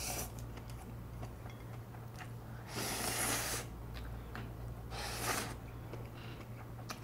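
Noodles being slurped from a bowl held to the mouth: a few short hissing slurps, the longest about three seconds in, another about five seconds in.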